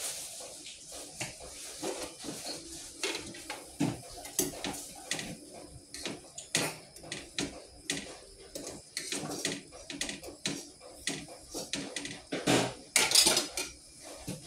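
Dishes, pots and cutlery being handled at a kitchen sink: irregular clinks and knocks, with a louder clatter near the end.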